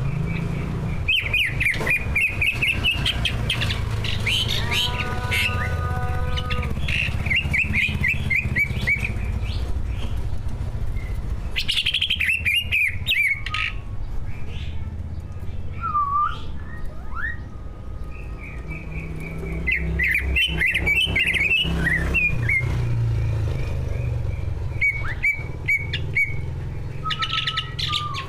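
Cucak ijo (green leafbird) singing: bouts of fast, chattering trills and varied warbled whistles, with a quieter gap about halfway through. A steady low hum runs underneath.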